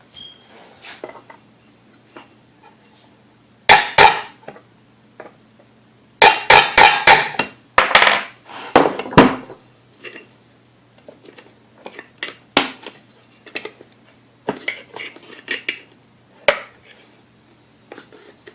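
Metal tools and mixer parts clanking and clinking on a workbench: a loud clatter about four seconds in, a quick run of sharp metal strikes around six to seven seconds, more around eight to nine seconds, then lighter clicks. A faint steady low hum lies underneath.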